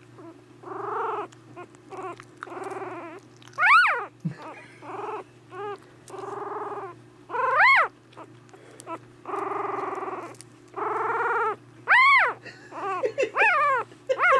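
Newborn miniature dachshund puppy giving its first attempts at barking: a dozen or so high-pitched cries and sharp squeaks that rise and fall in pitch, held cries mixed with short yips, coming quicker near the end.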